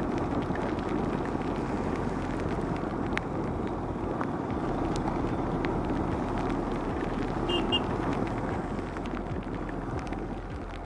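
Motorcycle riding on a wet road: steady engine, wind and tyre noise, with two short high beeps about seven and a half seconds in. The noise gets a little quieter near the end.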